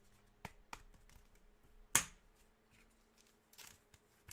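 Trading cards being handled and flipped: a few light clicks and rustles, with one sharp snap about two seconds in.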